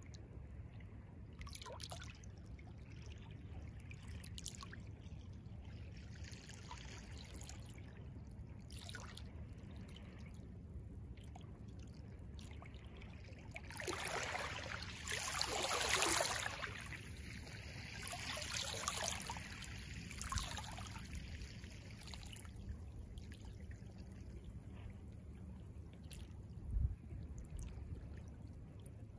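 Small waves of calm seawater lapping and splashing at the water's edge, over a steady low rumble. A louder run of splashes comes about halfway through.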